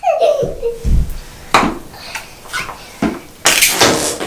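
Flarp noise putty being squeezed, making several short fart-like squelches, with children laughing.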